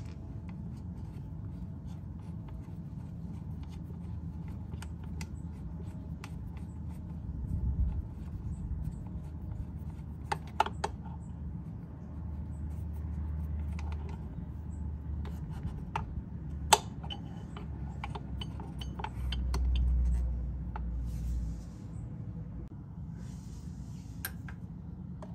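Scattered small clicks and rubbing as small bolts and washers are handled by fingers at a scooter's plastic body panel, with one sharper click about two-thirds of the way in. Under it is a low steady rumble that swells three times.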